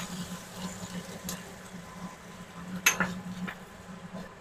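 A spatula stirring beef in a nonstick frying pan, scraping and knocking against the pan with a few sharp clinks, the loudest about three seconds in.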